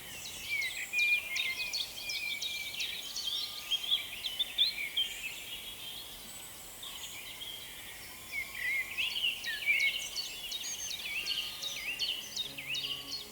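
A songbird singing in two long bouts of rapid, varied high notes, each about four seconds, with a pause between them, over a faint steady outdoor hiss.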